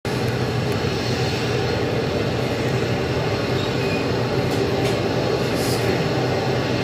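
RS-25 liquid-fuelled rocket engine firing on a test stand, a steady unbroken roar of exhaust noise heard through a television's speaker.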